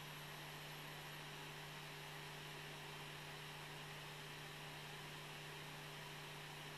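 Faint, steady low hum over an even hiss, with nothing else happening: room tone.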